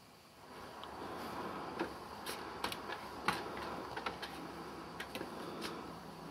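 A wooden shed door being unlatched and swung open: scattered light clicks and knocks over a steady outdoor hiss.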